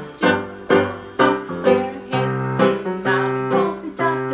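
Electronic keyboard played with a piano sound: an instrumental passage of chords over a bass line, a new note or chord struck about twice a second.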